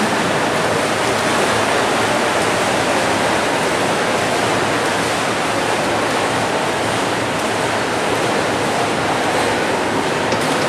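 Steady rushing din of swimmers splashing through the water of an indoor pool during a race, echoing in the pool hall.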